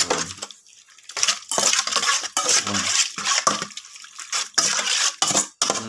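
A utensil scraping and clinking in a bowl in quick repeated strokes as grilled pork is tossed with its seasonings, pausing briefly about four seconds in.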